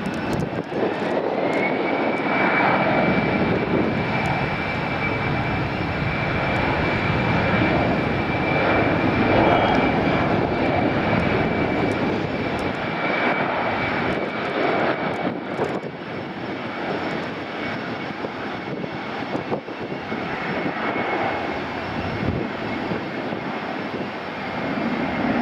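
Air France Airbus A319's twin CFM56 turbofan engines at takeoff thrust during the takeoff roll. A broad jet rumble carries a steady high whine that rises in pitch over the first couple of seconds and then holds. The sound is somewhat quieter in the second half as the aircraft pulls away down the runway.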